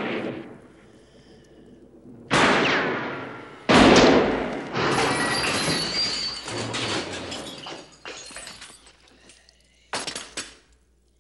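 Film gunfight sound effects in a hallway: the echo of a handgun shot dies away at the start, then two more loud shots ring out about 2 and 4 seconds in. They are followed by a few seconds of crashing and clattering, and one more sharp bang near the end.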